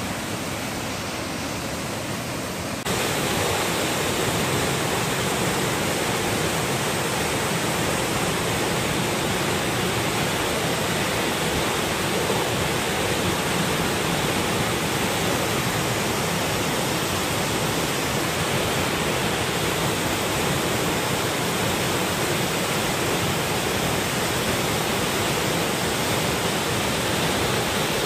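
Waterfall pouring down a rock face into a rock pool: a steady rush of water that gets louder and fuller about three seconds in.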